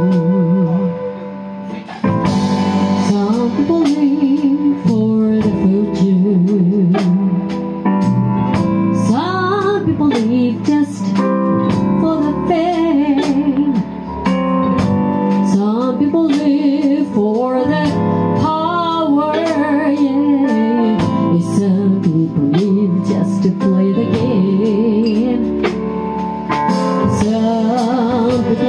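Live band playing a slow soul ballad, a woman singing lead into a microphone with vibrato over electric guitar and a steady beat. The music drops back briefly about a second in, then carries on at full level.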